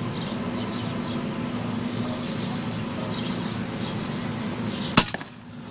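A single sharp shot about five seconds in from a suppressed .22 FX Wildcat BT PCP air rifle firing a slug. Underneath are faint bird chirps and a steady low hum.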